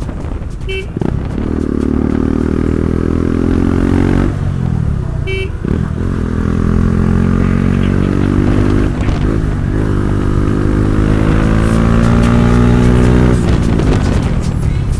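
Bajaj Dominar motorcycle's single-cylinder engine accelerating hard through the gears: the revs climb three times, dropping briefly at each shift about 4, 9 and 13 seconds in. Two short clicks with a brief high beep come through, just under a second in and again about five seconds in.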